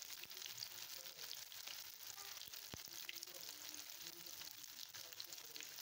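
Batter-coated chicken pieces sizzling faintly as they deep-fry in hot oil in a kadai over a high flame. There is a steady fine crackle, with one sharp click about two and a half seconds in.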